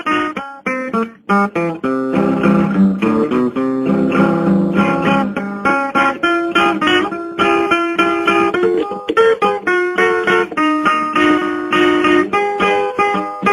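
Instrumental guitar music, plucked and strummed, with quickly changing notes over a lower bass line.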